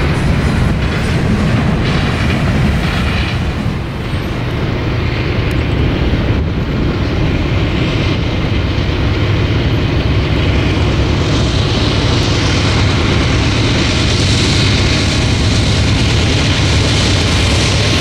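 Freight train cars rolling past, their wheels clicking and rumbling on the rails as an intermodal train goes by. From about two-thirds of the way in, a Norfolk Southern diesel-led freight train arrives and its rail noise builds, taking over as the steady sound.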